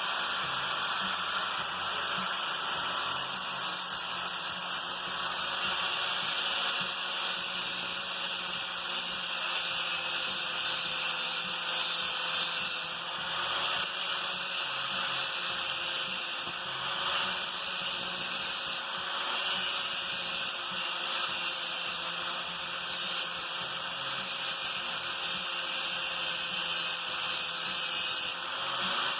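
Hyper Tough hand-held angle grinder sharpening a dull lawn mower blade: a steady high-pitched grinding hiss over the motor's whine. It dips briefly about four times.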